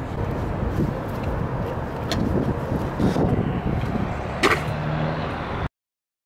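Stunt scooter wheels rolling over skatepark concrete, with sharp clacks of the scooter hitting the ground about two seconds in and, loudest, about four and a half seconds in. The sound cuts off suddenly near the end.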